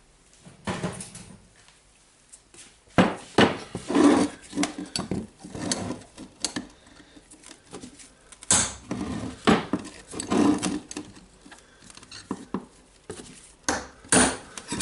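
Irregular sharp metal knocks and clinks, most of them from about three seconds in, as the armature of a Hitachi DH28PCY rotary hammer is worked out of its gear housing with a brass punch.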